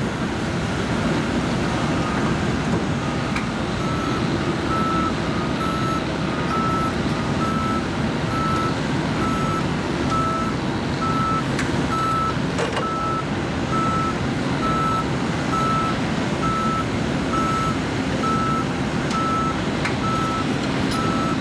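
John Deere 710L backhoe loader's diesel engine running under a steady low rumble, with its reversing alarm beeping about once a second from about four seconds in. A few sharp clanks sound near the middle and near the end.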